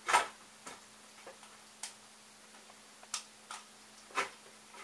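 Irregular clicks and knocks of parts and wires being handled as a component is slowly lowered into a 3D printer's steel frame column: one sharp knock at the start, a stronger one about four seconds in, and fainter clicks between.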